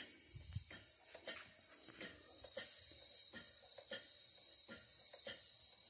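Wilcox & Gibbs sewing machine running slowly, belt-driven by a small steam engine. Its mechanism gives a regular light click, about one or two a second.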